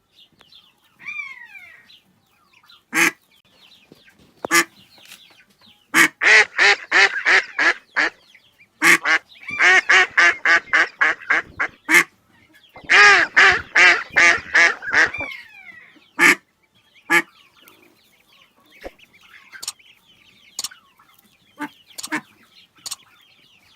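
Ducks quacking: loud single quacks scattered through, and three fast runs of about five quacks a second, around six, ten and thirteen seconds in, with softer calls between them.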